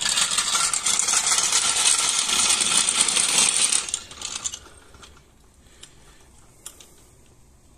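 Metal floor jack being dragged out from under a car, its wheels and frame rattling and scraping on asphalt for about four seconds before it stops.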